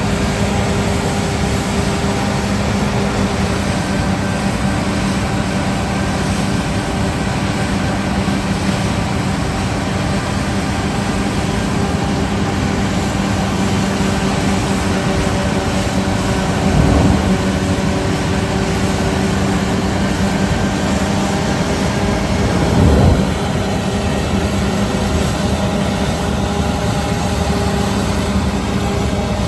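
Claas combine harvester running steadily under load, its heavy diesel engine giving a constant low hum. It briefly swells louder twice in the second half.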